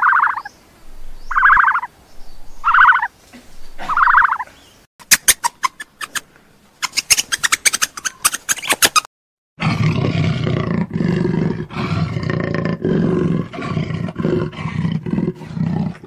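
A jaguar gives deep, rough, continuous growling calls through the second half. Before it come short calls repeated about once a second, then a burst of rapid chirping clicks from meerkats.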